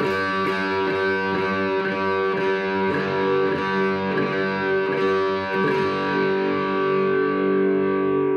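Gibson SG electric guitar played through an amp: chords picked about twice a second, then from about six seconds in a chord is left to ring out, its brightness fading.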